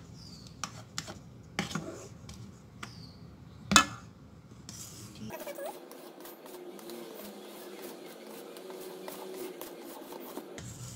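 Utensils clicking and knocking against a stainless steel bowl, with one sharp clack about four seconds in. From about halfway on, a wire whisk scrapes steadily around the bowl, stirring whipped egg whites into thick cake batter.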